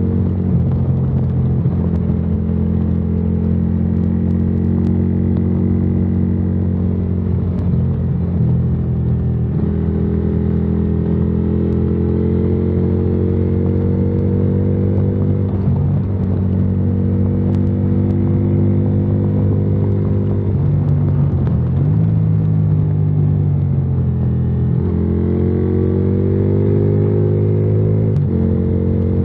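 Yamaha Virago XV535's V-twin with a debaffled exhaust, running under way with a deep rumble. Its note dips and climbs again several times.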